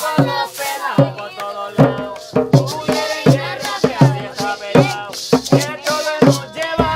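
Bullerengue-style music: a singing voice over hand drums struck at about two to three beats a second, with a shaker rattling throughout.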